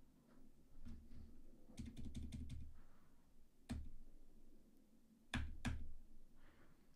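Computer keyboard keys being pressed. A quick run of about six keystrokes comes about two seconds in, then a single press, then two more near the end.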